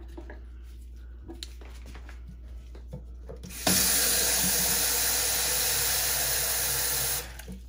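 Kitchen tap running for about three and a half seconds into a container, drawing fresh water for rinsing. The tap comes on about halfway in and shuts off near the end, with a few light handling clicks before it.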